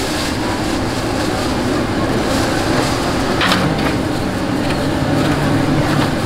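Steady background noise of a busy food stall, with a low machine-like hum. A couple of short clicks sound about three and a half seconds in.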